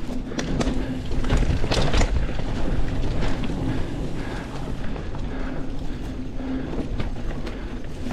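Mountain bike rolling along a dirt trail: a steady rumble of tyres and movement, with rattles and knocks from the bike over bumps that are thickest and loudest about one to two seconds in.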